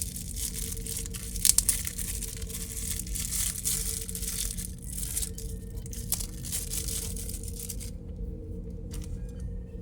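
Plastic packaging crinkling and tearing as it is pulled off a diecast model and its stand, with a few sharp crackles about one and a half seconds in; the crinkling stops near the end.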